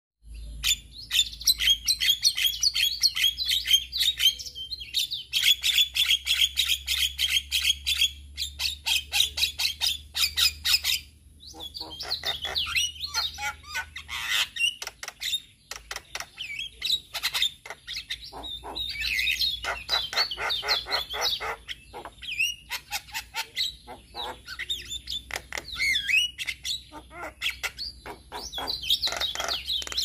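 A male Javan myna chattering in long runs of rapid clicking notes mixed with wavering whistled phrases, pausing briefly about eleven and fifteen seconds in.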